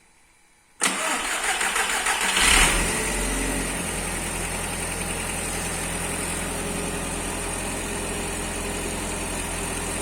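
Audi S3 8L's 1.8-litre turbocharged four-cylinder engine starting about a second in, flaring briefly, then settling into a steady idle.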